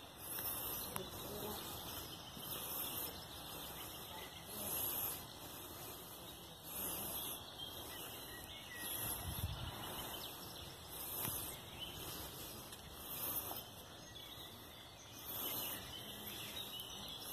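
Outdoor park ambience: scattered bird chirps and faint distant voices over a low hiss, with a low bump on the microphone about halfway through.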